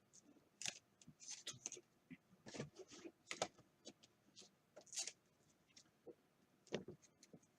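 Faint, irregular clicks and rustles of trading cards being handled, sliding and tapping against one another as they are sorted.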